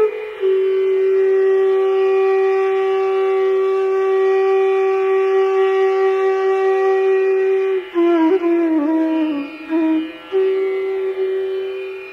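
Carnatic-style music on a wind instrument: one long held note for most of the time, then an ornamented phrase that wavers and falls, then the note held again, fading near the end.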